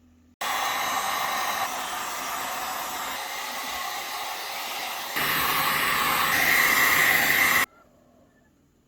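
Steady rushing air of an electric blower. It starts abruptly about half a second in, grows louder and brighter in two sudden steps, and cuts off sharply near the end.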